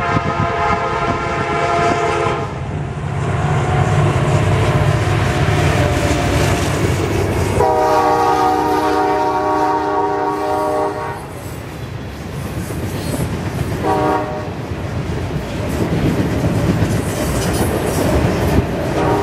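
Diesel freight locomotive horn sounding a series of long blasts, with a short blast about fourteen seconds in and another starting near the end. Under the horn, the locomotives pass with a low rumble, strongest in the first half. Grain hopper cars then roll over a rail bridge with a clickety-clack of wheels.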